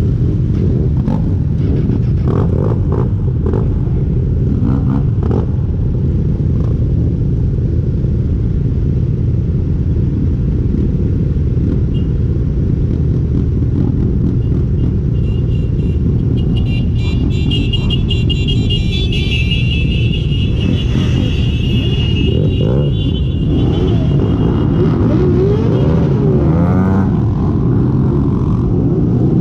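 Several motorcycle engines idling together in a low, steady rumble. A high warbling sound comes in for several seconds midway, and near the end engine revs rise and fall as the bikes pull away.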